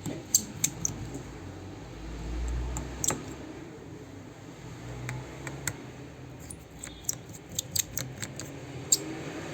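Small repair tools clicking and tapping on a smartphone's screws and case during disassembly: a dozen or so light, sharp clicks spread out, several in quick succession near the end.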